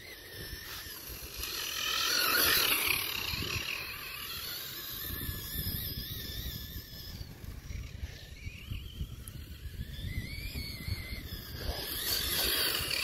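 Remote-control desert buggy driving across grass, its motor whining and rising and falling in pitch with the throttle, loudest about two seconds in.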